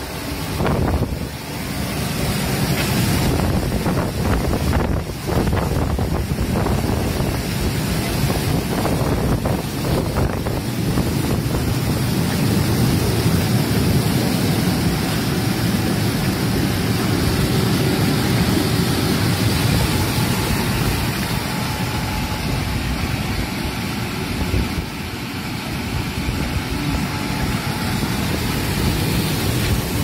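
Air bubble vegetable washing machine running: the water in its tank is churning and bubbling under the blower's air, a steady rushing noise. There are a few light knocks in the first several seconds, and wind buffets the microphone.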